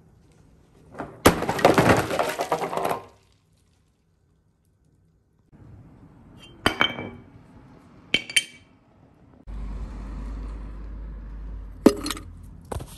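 A hot copper ingot quenched in a pan of ice water: a loud crackling, hissing burst lasting about two seconds. Later come a few sharp metal clinks, and near the end clanks as aluminum motor scrap is packed into a crucible.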